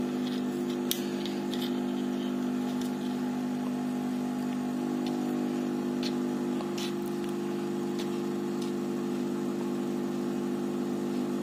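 Hot air gun running with a steady fan hum, blowing heat onto an earphone housing to soften the glue holding it shut. A few faint clicks along the way.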